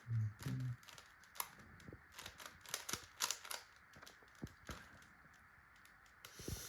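Plastic Rubik's cube being turned fast during a speed solve: irregular rapid clicks and clacks as the layers snap round. There is a brief low hum right at the start.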